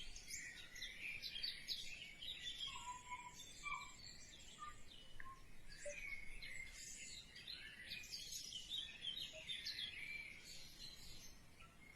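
Faint birds chirping: many short, high calls overlapping, with no let-up.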